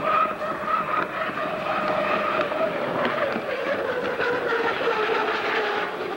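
Unlimited hydroplane racing boat running flat out, a steady high engine whine whose pitch falls gradually in the second half as the boat passes and draws away.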